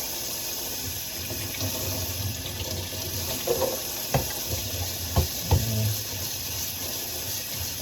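Kitchen tap running into a sink during hand dish-washing, a steady rush of water. Three sharp knocks of dishware come about four, five and five and a half seconds in.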